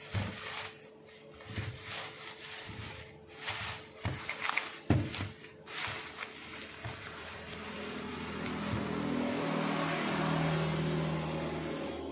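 Thin plastic carrier bag crinkling and rustling as it is gathered and twisted into a knot, with sharp crackles over the first several seconds. About eight seconds in, a motor vehicle's engine swells up and keeps running.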